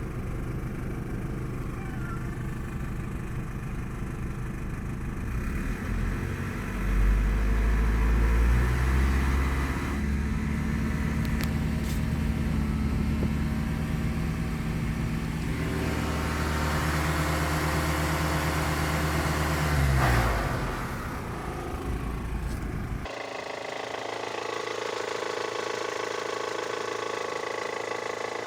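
Great Wall Hover H5 petrol engine (a Mitsubishi design) idling, then revved up about six seconds in and held at higher revs until it drops back to idle around twenty seconds. Near the end the running turns steadier and thinner. The engine has a knock at idle that the owner traces to a slack timing belt, the hydraulic tensioner no longer pressing hard enough.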